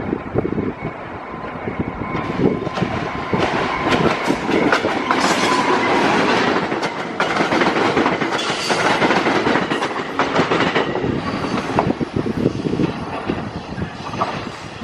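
Train rolling past, its wheels clacking over rail joints in a dense run of clicks, with a faint wheel squeal from about two to five seconds in.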